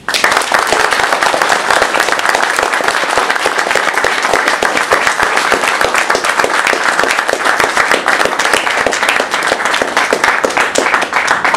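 Audience applauding: a dense, steady round of clapping that stops abruptly near the end.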